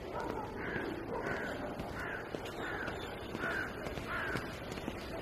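A crow cawing: a series of about six short caws, evenly spaced about two-thirds of a second apart, over steady outdoor background noise.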